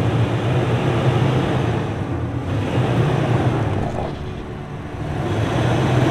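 Toyota Sequoia's V8 engine running as the truck creeps forward onto leveling rocks; the sound dips about four seconds in, then comes back up.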